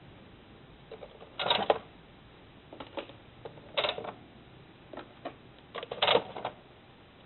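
Plastic toner cartridges being pulled out of the slots of a Samsung CLP-310-series colour laser printer one after another: short plastic clicks and scrapes, the loudest about one and a half, four and six seconds in.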